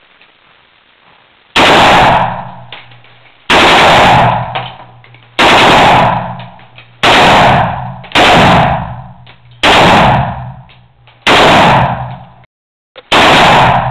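Type II AK-47 rifle (Izhevsk-made, 1952) in 7.62×39 mm fired eight times in single shots, one about every one and a half to two seconds. Each loud crack is followed by a ringing echo that dies away over about a second.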